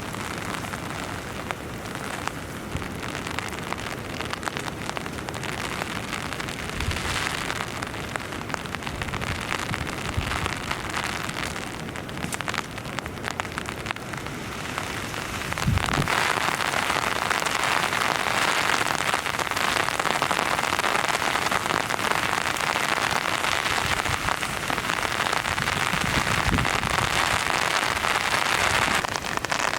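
Heavy rain falling on tent fabric, a steady hiss of drops that grows suddenly louder about halfway through.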